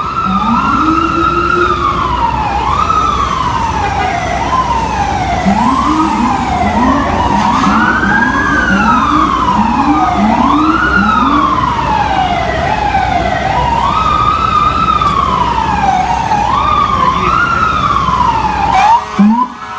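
Sirens of NYPD police SUVs and an FDNY fire engine wailing together, several overlapping and rising and falling every couple of seconds. A lower, faster siren sweeps upward over and over for several seconds in the middle. Traffic noise sits underneath.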